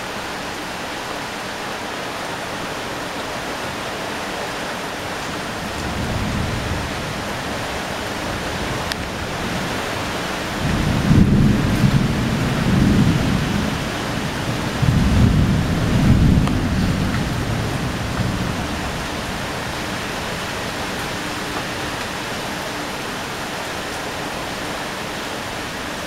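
Heavy rain in a strong wind: a steady hiss, with deep rumbling surges about six seconds in and again for several seconds from about ten seconds in.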